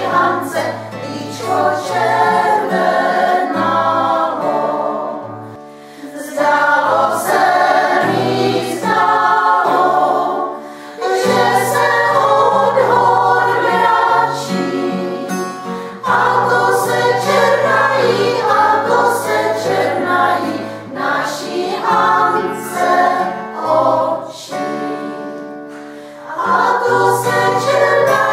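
Women's choir singing in several voice parts, in phrases with short breaks between them, accompanied by acoustic guitar.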